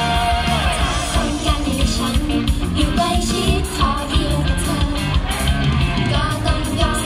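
Upbeat idol-pop song played loudly through stage speakers, with female voices singing over a steady drum beat and guitar.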